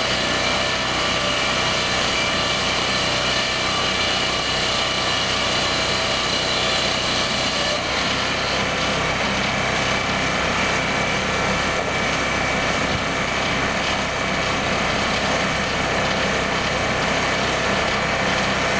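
Cook's board edger running steadily under its engine, its split strobe saw blades spinning as a board is fed through on the belt and both bark edges are trimmed off in one pass.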